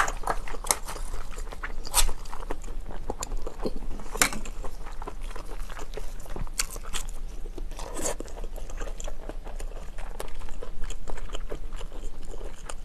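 Close-up eating sounds: a person chewing and biting scallop meat, with sharp clicks and scrapes as the scallop shells are handled.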